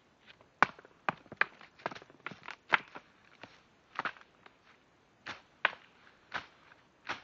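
A string of sharp clicks and snaps close to the microphone, irregular, about one or two a second.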